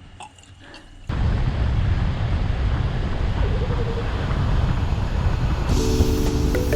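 Steady rushing wind and road noise on a microphone riding along on a road bike, starting suddenly about a second in and heaviest in the low end. Music notes come in near the end.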